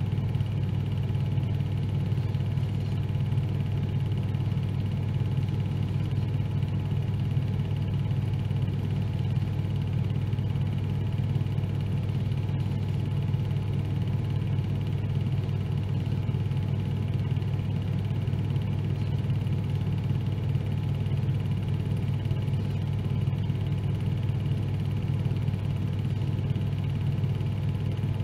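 Steady, unvarying low drone of a car running at constant speed, with no revving or gear changes.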